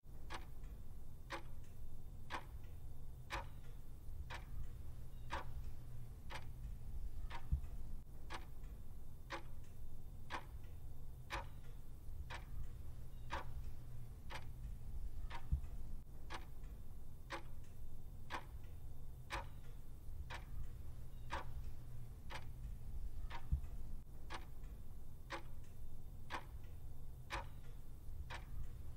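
Clock-ticking timer sound effect: steady, evenly spaced ticks counting down over a low steady hum.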